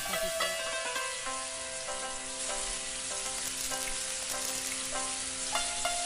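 Background music of long held notes over a steady hiss, with a few plucked-string notes near the end.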